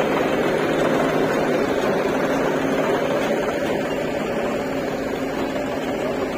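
John Deere farm tractor's diesel engine running steadily at close range as the tractor manoeuvres up to a trolley's drawbar.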